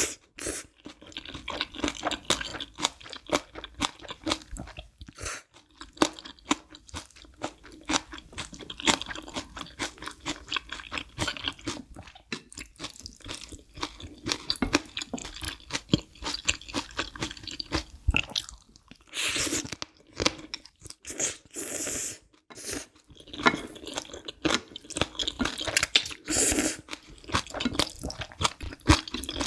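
Close-miked chewing and crunching of green onion kimchi and black bean noodles, dense irregular mouth clicks and crunches, with a few longer, louder noisy bursts of slurping about two-thirds of the way in.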